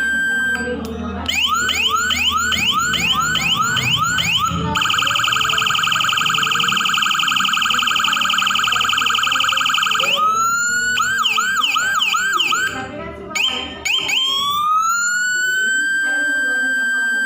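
Electronic vehicle siren module, holding Whelen, Senken and Landun tones, cycling through its siren patterns. It plays a yelp sweeping up and down about two or three times a second, then a fast high-low warble for about five seconds, another short burst of yelp, and finally a wail that rises and holds steady near the end.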